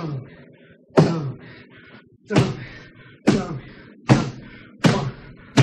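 Fists pounding a wall in a steady series of heavy blows, a little under one a second. Each thud is followed by a short grunt or cry.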